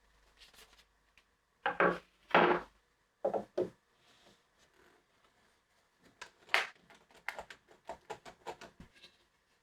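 Wooden knocks and clicks: two loud knocks about two seconds in, two more about a second later, then a run of quicker, lighter taps and clicks from about six seconds in.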